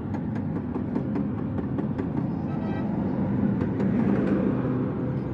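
Steady low mechanical running noise with a hum, with scattered light clicks or taps.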